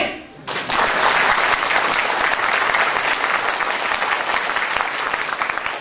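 Audience applauding in a hall: many hands clapping together, beginning about half a second in and going on steadily.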